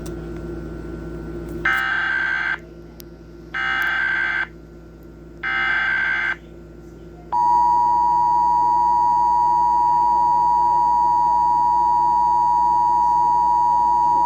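Emergency Alert System required monthly test: three bursts of SAME header data, each about a second long and about two seconds apart, then the EAS two-tone attention signal (853 and 960 Hz) starting about seven seconds in and held steady through the end.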